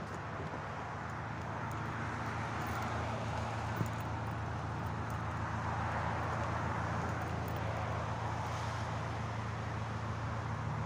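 Steady motor-vehicle noise: a low engine hum under a broad road-and-wind rush that swells a little in the middle, with one light knock about four seconds in.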